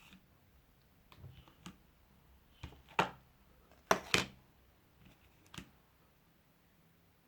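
Slime being kneaded and squeezed by hand, giving a few separate sticky clicks and pops.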